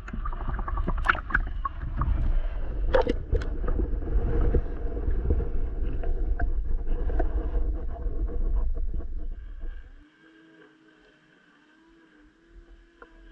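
Underwater sound: a loud low rumble with scattered clicks and knocks, which cuts off about ten seconds in and leaves a faint steady hum.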